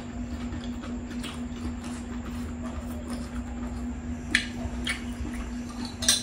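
Close-miked wet chewing and squishing of saucy enoki mushrooms and meat, with a few sharp short clicks or smacks about four, five and six seconds in, over a steady low hum.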